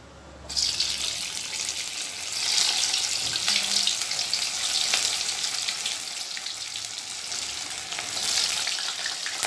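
Hot oil in a kadai sizzling and crackling as balls of grated parboiled potato are dropped in for deep-frying. The sizzle starts suddenly about half a second in and swells again as more pieces go in.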